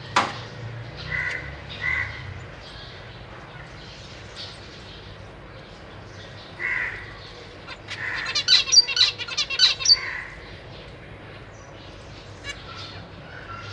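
Zebra finches calling in their cage: a few separate nasal calls, then a quick run of rapid chirps about eight seconds in lasting a couple of seconds. A sharp click comes right at the start.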